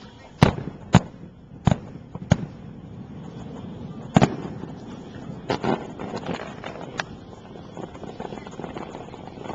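Aerial fireworks bursting: about eight sharp booms at uneven intervals, the loudest two in the first second, followed by a spell of many smaller pops.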